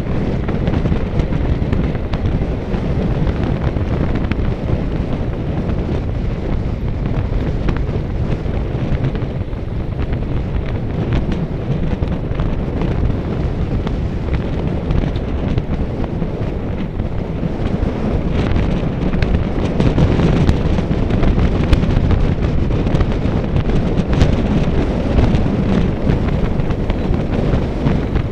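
Steady wind buffeting the microphone, a loud low rumble, with a few faint clicks in the second half.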